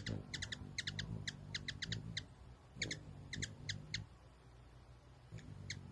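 Hummingbirds chipping: short, high chirps in quick runs, with a pause about four seconds in.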